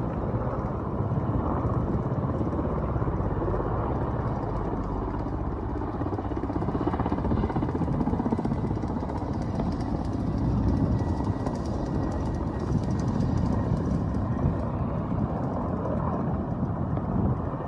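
Two Russian military helicopters flying past low, their engines and rotors making a steady, continuous noise.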